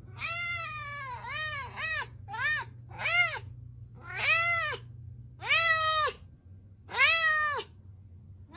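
A long-haired cat meowing about eight times in a row, each meow rising then falling in pitch. The first few are short and quick, and the last three are longer, drawn-out calls.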